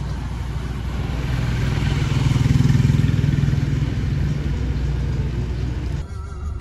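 Street traffic noise heard from a moving vehicle, with a motorcycle engine swelling to its loudest two to three seconds in and then easing off. The noise drops away abruptly about six seconds in.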